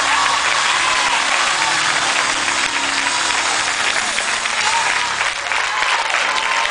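Church congregation clapping and cheering, with a high voice wavering above the crowd and a held chord of music underneath that fades out about four seconds in.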